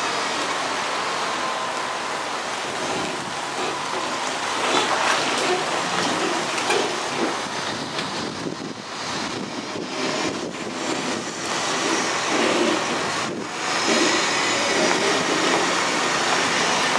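Tractor-trailer reversing slowly over gravel, its diesel engine running with a steady rushing noise. It grows louder near the end as the trailer draws up alongside.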